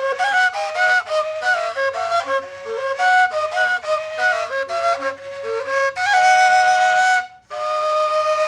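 Colombian gaita, a long duct flute, playing a quick melody of short notes. Near the end it settles on long held notes, broken once by a short pause.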